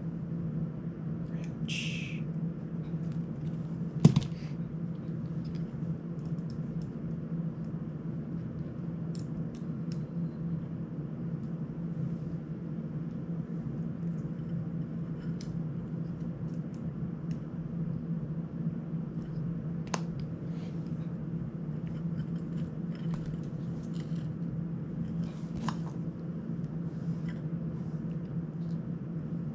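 Small clicks and taps of a plastic FPV drone frame and its parts being handled and fitted by hand, with one sharp click about four seconds in. A steady low hum runs underneath.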